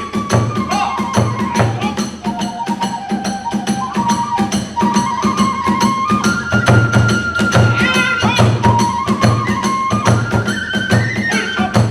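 Kagura hayashi ensemble playing: a bamboo flute melody that steps up and down over a steady, driving beat of drum and small hand cymbals.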